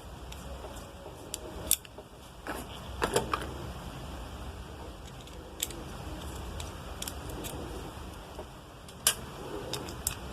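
Small tool-and-plastic handling clicks as a screwdriver loosens a terminal screw on a three-pin mains plug: a few sharp clicks scattered through, the loudest near the start and again near the end, over a low steady hum.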